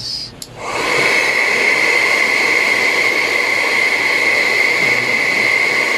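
Deli plastic welder gun running, its fan blowing hot air in a steady hiss with a high whine; it comes on about half a second in.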